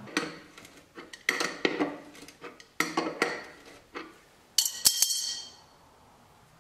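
Old mechanical wagon jack being worked by hand, giving a series of sharp metallic clanks and clinks with a short ring, the loudest cluster about five seconds in.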